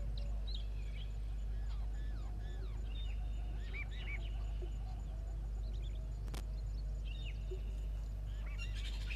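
Several small birds chirping and whistling in short arched calls, over a steady low hum. A single sharp click sounds about six seconds in.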